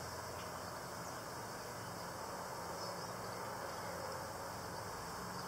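Honeybees buzzing steadily around an open hive, from a colony in which no queen can be found.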